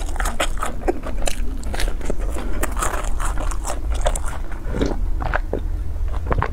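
Close-miked eating sounds: wet chewing and sharp mouth clicks on fried dough sticks (youtiao) soaked in a milky drink, with sipping from the bowl about halfway through.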